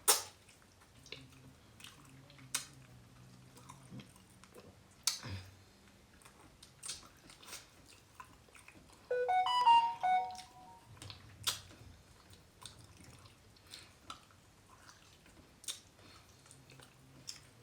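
Close-miked chewing and mouth smacking while eating oxtail off the bone: scattered wet clicks and smacks. About nine seconds in, a brief musical tone stepping upward in pitch sounds for about a second and a half.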